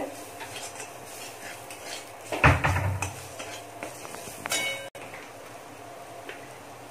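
Metal spatula stirring spiced masala in a kadai, with a heavy thump about two and a half seconds in and a short ringing metallic clink a couple of seconds later.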